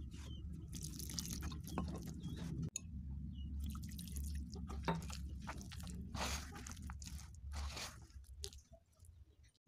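Hands scrunching and squeezing flour and wet donut dough in a basin: irregular soft crunching and squishing, with water poured in on top. A low steady hum runs underneath until near the end.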